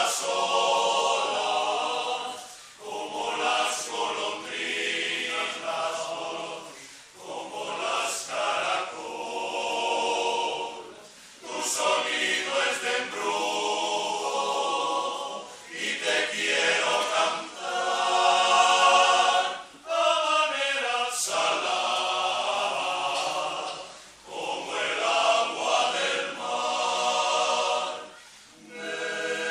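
Male voice choir singing a cappella, in phrases broken by short pauses every few seconds.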